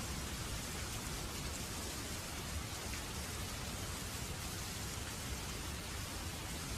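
Steady rain falling, an even, unbroken hiss with a heavy low end and no distinct strikes.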